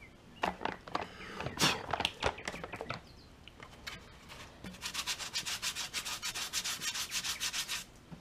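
Hand rubbing fast back and forth over the hardened super glue and baking soda patch on a plastic gas tank, brushing off the loose baking soda, at about seven strokes a second for about three seconds in the second half. Before that, a paper packet rustles and clicks as it is handled.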